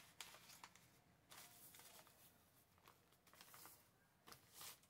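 Near silence, broken by faint, scattered soft taps and rubs of ink being dabbed onto a paper journal page.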